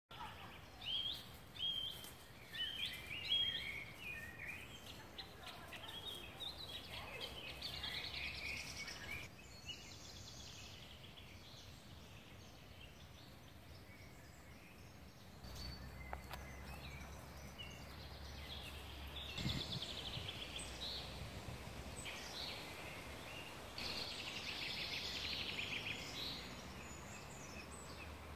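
Woodland birds calling and singing: short chirps and trills scattered throughout, loudest in the first few seconds, over a steady outdoor background hiss. A low rumble runs for several seconds in the middle.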